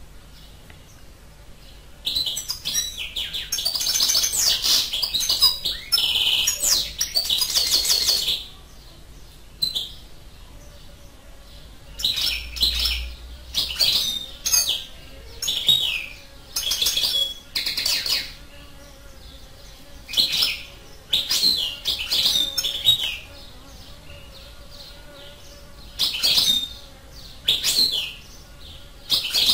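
European goldfinch singing: quiet for about two seconds, then a continuous twittering song phrase for about six seconds. After that comes a run of short chirping calls every second or two.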